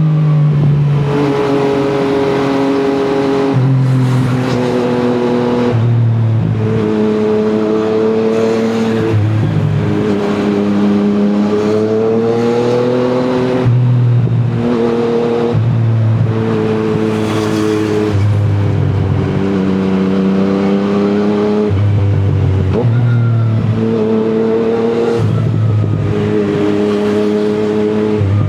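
Yamaha MT-09's three-cylinder engine running through an Akrapovic exhaust. The engine note steps up and down in pitch every second or two, over and over, with the revs rising and falling.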